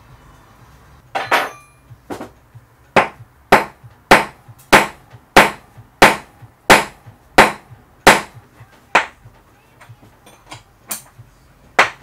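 Hammer blows on the bearing hub of a washing-machine tub: about a dozen sharp metal strikes, a little over one a second, driving out the drum bearing. A few lighter taps follow near the end.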